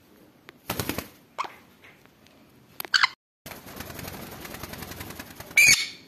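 Conure giving two short, loud, high-pitched screeches, one about three seconds in and one near the end. A rapid rattling burst comes about a second in.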